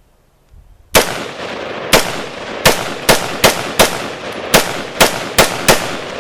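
A rapid string of gunshots: about a dozen sharp reports at uneven spacing, starting about a second in, each with a lingering echo.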